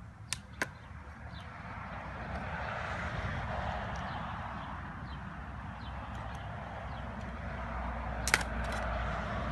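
Wooden top cover of a package of bees being prised off: two light cracks at the start and a louder sharp crack near the end, over a steady low rumble.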